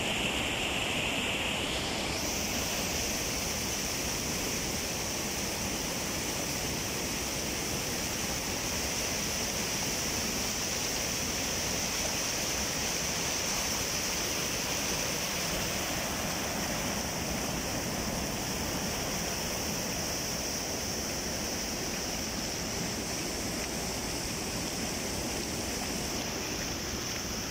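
Rapids of a rocky river: white water rushing over and around boulders, a steady rush, a little softer near the end.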